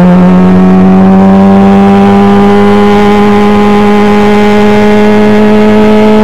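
Onboard sound of an F1000 formula car's 1000cc motorcycle engine pulling steadily in one gear, its pitch rising slowly and evenly with no gear changes.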